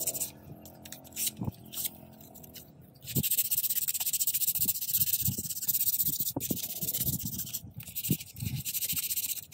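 Sandpaper rubbing over the edges of a painted popsicle-stick wooden blade: a scratchy hiss in short, broken strokes at first, then steady, louder back-and-forth sanding from about three seconds in.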